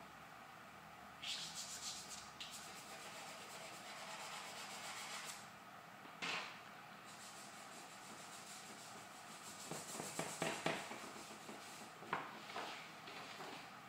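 Charcoal stick rubbing on drawing paper in short, scratchy strokes, with a cluster of several quick strokes in the second half.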